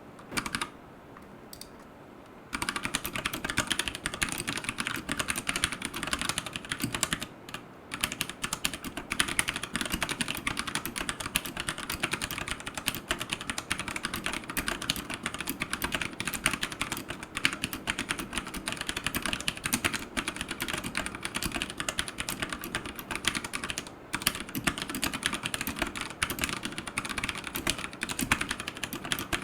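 Fast, continuous typing on a Royal Kludge RK100 mechanical keyboard with brown tactile switches and AKKO clear keycaps. After a couple of lone key clicks it starts about two and a half seconds in and runs on, with two short pauses.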